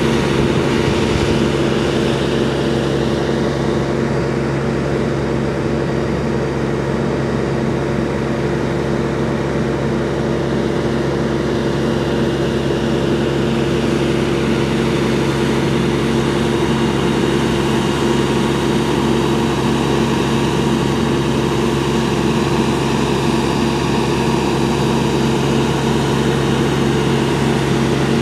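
Fire engine's motor running steadily at high revs to drive its pump during a pump test, a constant loud drone with no change in pitch.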